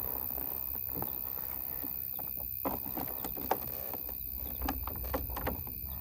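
Scattered light knocks and clicks of things being handled, over a steady low background noise.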